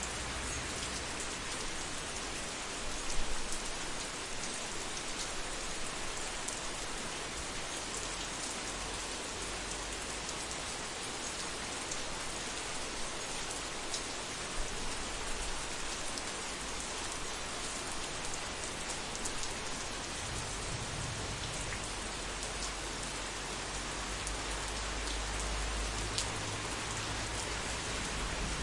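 Steady heavy rain falling on surfaces, with scattered sharper drop hits. A low thunder rumble swells in the last third.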